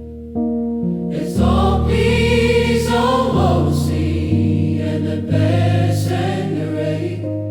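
Gospel choir singing over sustained accompanying chords; the chords change every second or so, and the voices come in strongly about a second and a half in.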